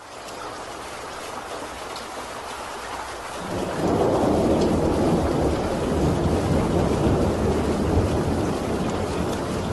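Thunderstorm: steady rain with thunder that swells into a long low rumble about three and a half seconds in and carries on under the rain.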